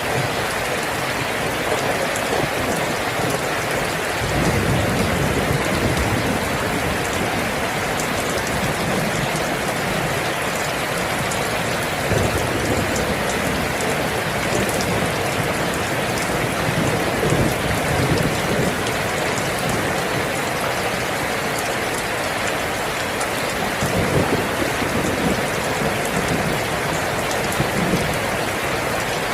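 Steady heavy rain falling in an even hiss, with low rumbles swelling and fading several times.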